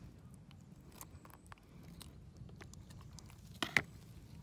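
Faint wet crunching and small clicks of a knife cutting through a salmon's body cavity to free the liver, with a louder brief knock about three and a half seconds in.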